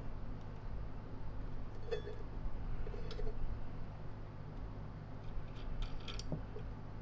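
A few light clicks and small rattles from a vacuum cleaner motor being handled and turned by hand, heard over a steady low hum.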